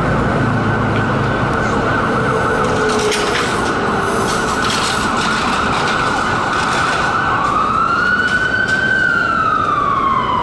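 Steady street traffic noise. About seven seconds in, an emergency vehicle siren starts up, a slow wail that rises and then falls.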